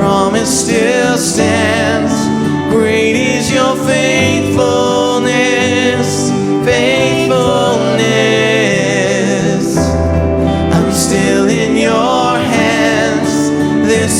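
Worship song: a singer's voice with vibrato over sustained instrumental chords and bass.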